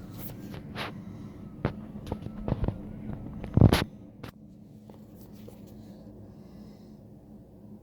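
A series of sharp knocks and clicks, ending in one loud thump about three and a half seconds in, over a steady low hum.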